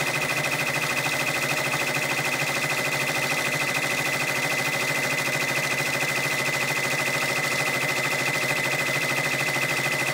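A Brother PR655 six-needle embroidery machine stitching steadily, with a fast, even needle rhythm that does not change.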